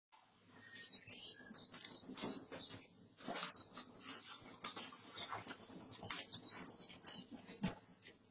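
Small birds chirping in quick, repeated high notes, over scattered scuffs and rustles.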